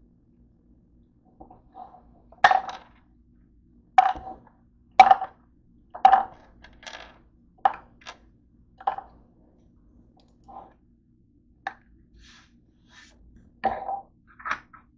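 Pills dropped one at a time into a plastic pill bottle: a dozen or so sharp clicks, each with a short hollow ring, falling at uneven intervals about a second apart.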